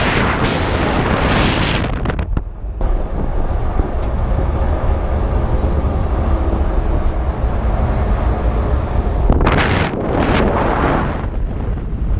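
Wind buffeting the microphone: a steady low rumble with louder gusts at the start and again about ten seconds in.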